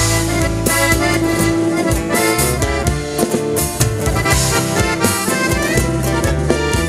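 Live band playing an instrumental cueca passage: the accordion leads the melody over strummed guitar and a drum kit keeping a steady beat.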